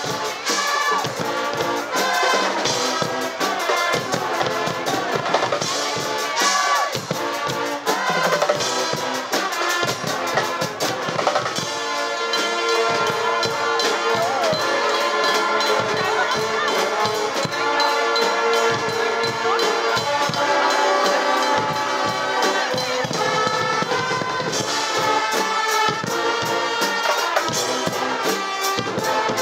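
A Guggenmusik carnival band playing loudly: trumpets, trombones and sousaphones over a steady beat from bass drum, snare drums and cymbals.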